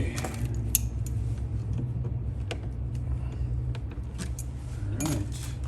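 Scattered light clicks and metallic taps as electrical wire is handled and worked with hand tools at the wall connector, over a steady low hum.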